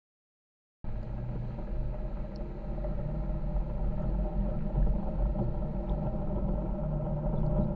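Side-by-side UTV engine running steadily as it drives slowly over a rocky trail, a low rumble that starts abruptly about a second in.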